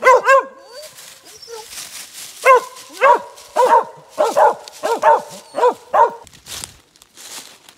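Mountain Cur squirrel dogs barking treed at the base of a tree, the sign that they have a squirrel up it. There are about a dozen short, sharp barks, often in quick pairs, which stop about six seconds in, followed by leaves rustling underfoot.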